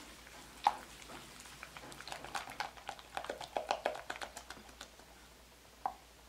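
Silicone-coated whisk beating eggs and sugar in a glass bowl: a run of quick light clicks and taps against the glass, with a sharper knock near the start and one more near the end.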